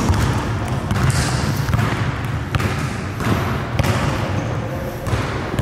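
Basketball game sounds in a gym: a ball bouncing on the hardwood court over steady, indistinct background noise, with a few short sharp knocks.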